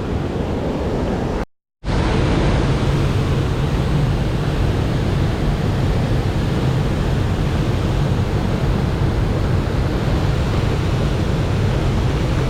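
Steady rushing of a swollen mountain stream running high after rain, broken by a moment of dead silence about one and a half seconds in.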